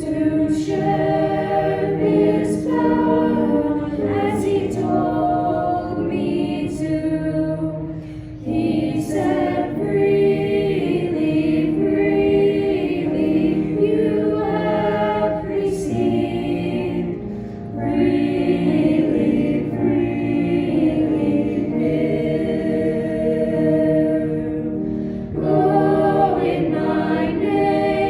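A choir singing a worship song, several voices holding long notes, with brief breaths about eight and seventeen seconds in.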